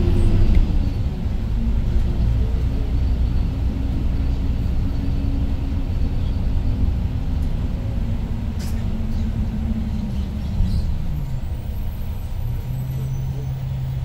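Hyundai New Super Aerocity city bus with its C6AE CNG engine, heard from inside the cabin: a steady engine drone under way, which falls in pitch about ten seconds in as the bus slows, settling into a lower steady hum near the end.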